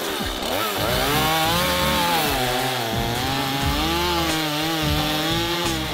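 Two-stroke gas chainsaw cutting into a hickory trunk, its engine pitch rising and falling as the chain bites and eases through the bark. The saw is cutting a girdling ring around the tree to kill it.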